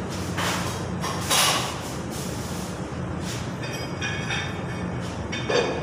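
Plastic bag rustling and scraping of limescale debris in short bursts, loudest about a second and a half in and again near the end, over a steady low hum of plant-room machinery.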